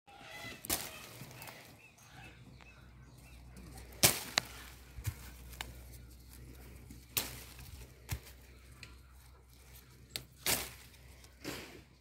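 Scattered sharp snaps and rustles of orange-tree leaves and twigs, about eight of them, the loudest about four seconds in, over a faint low steady hum.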